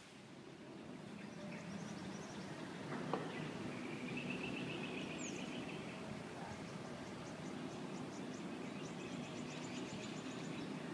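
Outdoor ambience: small birds chirping over a steady low background hum, with a rapid high trill in the second half and a single sharp click about three seconds in.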